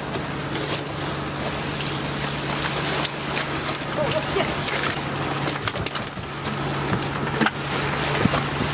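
Fishing boat's engine running with a steady low hum under wind and sea noise, with scattered sharp knocks as the crew gaff a sailfish alongside and drag it onto the wooden deck.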